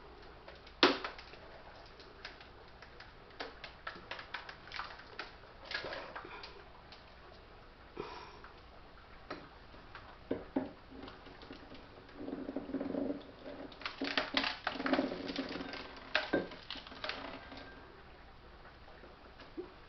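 Scattered knocks, clicks and clatter from a chest freezer being defrosted, as ice and things inside are worked loose and handled. A sharp knock about a second in is the loudest, and a denser stretch of rough scraping and clatter comes in later.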